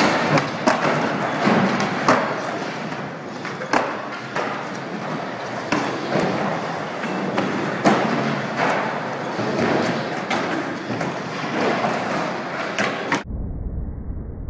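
Skateboards rolling and clattering on a hard skatepark floor, with frequent sharp knocks of boards slapping down. About 13 seconds in the sound cuts off abruptly to a muffled, bass-heavy rumble.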